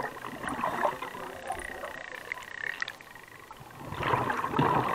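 Underwater bubbling and gurgling of a scuba diver's exhaled breath through the regulator: a burst at the start, quieter between, then a longer, louder burst of bubbles about four seconds in.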